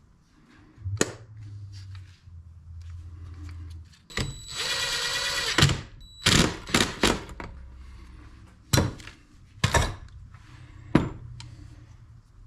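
Cordless drill running for about a second and a half as it drives a fastener into a throttle body, followed by a quick run of sharp knocks and then a few single clunks as tools and parts are handled on the workbench. A low hum sounds for a few seconds before the drill.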